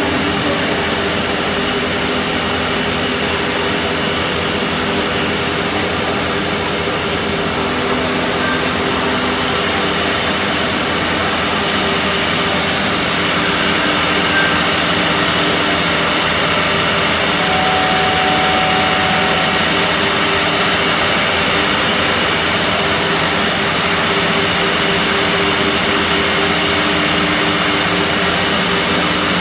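Ming Da four-head CNC mortising machine running, its four high-speed spindles whining steadily as they cut mortises into wooden chair slats. The sound is a little louder from about halfway through.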